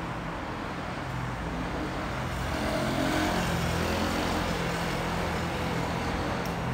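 City street traffic: a steady rumble of car engines and tyres on the road, growing a little louder about halfway through.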